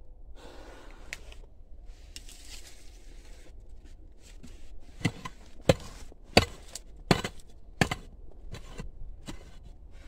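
Soil and stones being scraped and dug by hand, then a run of about five sharp knocks, one every 0.7 seconds or so, as a digging tool strikes into stony soil, followed by a few lighter clicks.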